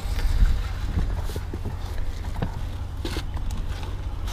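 Low steady rumble of a motor vehicle with scattered light knocks and clicks over it.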